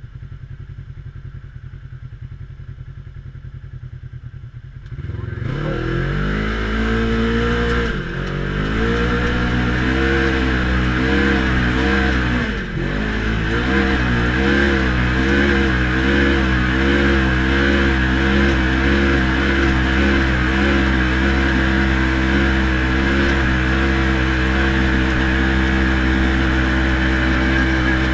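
Side-by-side UTV engine, heard from inside the cab, running low for about five seconds, then opened up to high revs with two brief dips in throttle. It then holds steady at high revs, under load while the vehicle climbs a steep sand dune.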